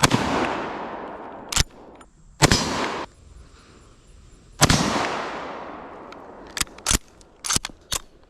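Three rifle shots from bolt-action rifles, each ringing out with a long echoing decay; the second is cut off abruptly. There is a sharp click between the first two shots, and a quick run of sharp clicks near the end.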